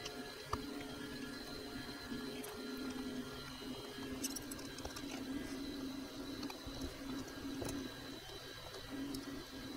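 Low workbench sound: a steady hum, with a few faint clicks and taps as the pitch-control circuit board and soldering iron are handled during desoldering.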